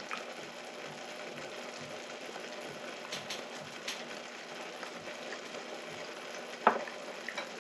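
Shabu-shabu broth bubbling steadily in a pot, with a few light clicks, the loudest about two thirds of the way through.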